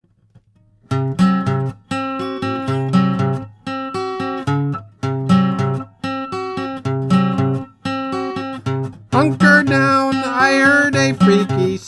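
Acoustic guitar playing a song intro in a steady rhythm, starting about a second in; a man's voice begins singing over it about nine seconds in.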